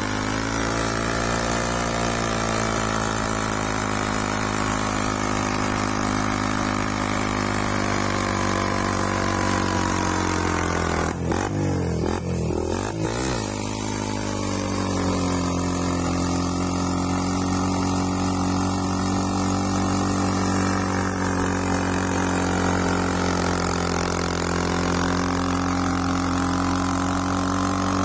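Kuba Cross motorcycle engine held at steady high revs, as for a rear-tyre burnout. About twelve seconds in, the revs drop and waver briefly, then climb back up and hold.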